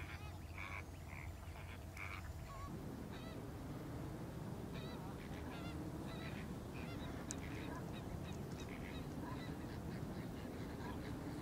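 A flock of flamingos calling: many short honking calls, scattered and overlapping, over a steady low rumble.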